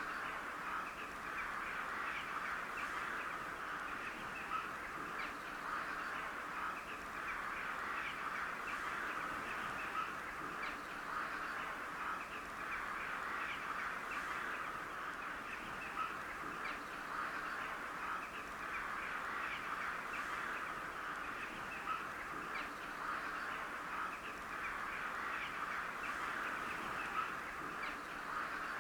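A large flock of crows calling continuously, many caws overlapping into a steady chorus with individual calls standing out every second or so.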